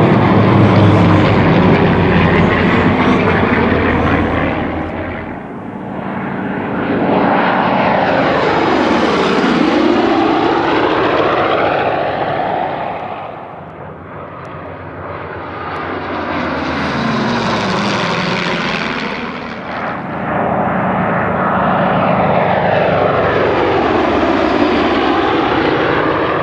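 Formation of WWII piston-engine fighters (P-38 Lightnings, a P-51 Mustang and P-47 Thunderbolts) flying past, a loud propeller-engine drone that swells and fades over about three passes, with a swooshing sweep in tone as each pass goes by.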